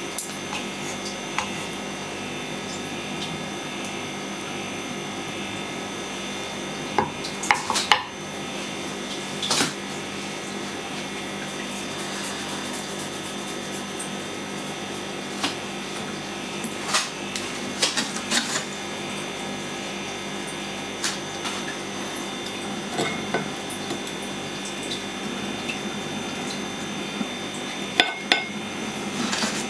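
Food being plated by hand on a ceramic plate: a few scattered light clicks and taps, over a steady background hum with several fixed tones.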